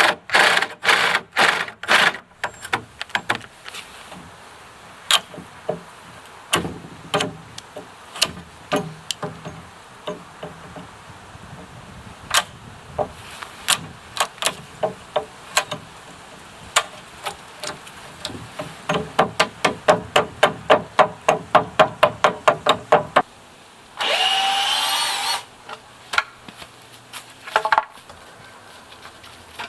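Hammer blows on wood, at first in scattered groups and later in a fast, even run of about four strikes a second, as a 2x4 is worked and fitted. Near the end a loud whirring burst of about a second and a half cuts in, with a few more knocks after it.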